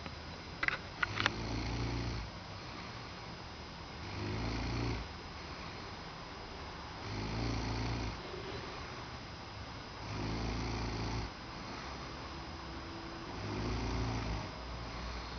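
A sleeping person snoring: five low snores, one about every three seconds, each lasting about a second. Three short, sharp clicks about a second in.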